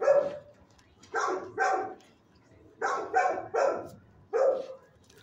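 A dog barking, loud single barks in short bursts of two or three, with brief pauses between the bursts.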